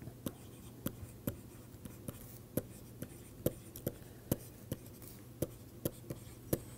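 Stylus writing on a tablet screen: sharp, irregular taps and short scratches, about one or two a second, as an equation is written out by hand.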